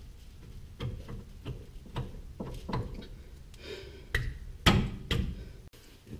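Irregular metal clinks and knocks from a steel front-suspension bracket, bolts and tools being handled and fitted together, the loudest knock a little before five seconds in.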